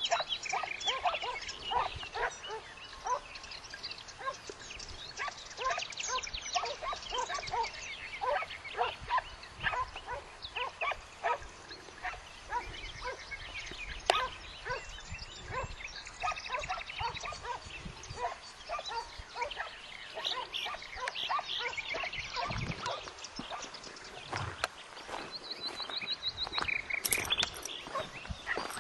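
A pack of hare-hunting hounds baying throughout, many short overlapping yelping barks, the sound of hounds working a hare's scent in the brush.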